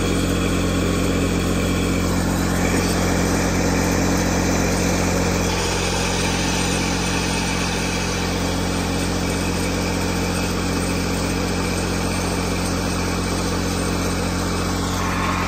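An engine idling steadily, with an even hiss over it.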